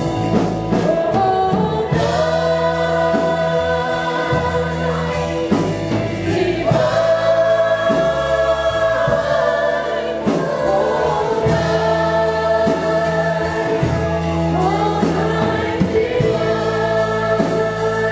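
Choir singing a Christmas song with instrumental backing, held notes over a steady bass line.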